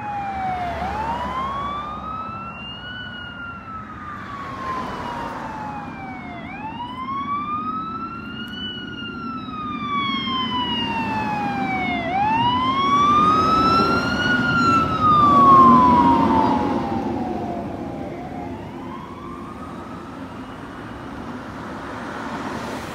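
Fire engine's siren on a slow wail, rising and falling about every six seconds. The truck's engine and road noise swell to their loudest about two-thirds of the way through as it passes, then fade as it moves away.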